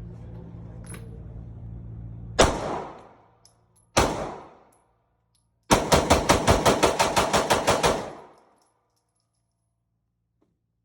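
Glock pistol firing: two single shots about a second and a half apart, then a rapid string of about sixteen shots in two and a half seconds as the magazine is emptied.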